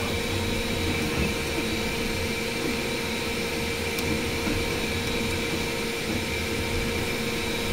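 Dremel Digilab 3D45 3D printer running mid-print: a steady whir of its fans and motors, with a few steady tones held through it.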